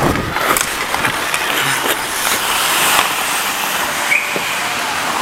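Skate blades carving and hissing on rink ice as the camera-wearing player skates hard, with a few sharp clacks of sticks or puck.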